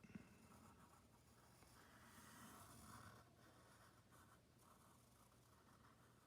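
Faint scratching of a pen drawing lines on paper, with a soft knock just after the start.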